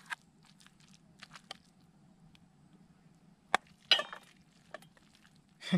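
Metal spatula and stainless steel pan clinking and scraping against steel plates as noodles are served out, with sharp clinks a little past halfway through and again near the end.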